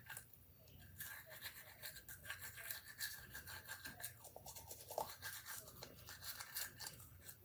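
A child brushing her teeth with a manual toothbrush: quick scrubbing strokes of bristles against teeth, with a short pause at the start and another about four seconds in.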